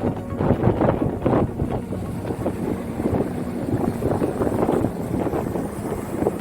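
Strong wind buffeting the microphone: a loud, uneven rushing with irregular gusts.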